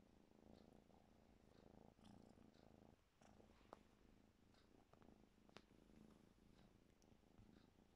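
A cat purring steadily as it grapples with and bites a knitted sleeve, with a couple of faint sharp clicks around the middle.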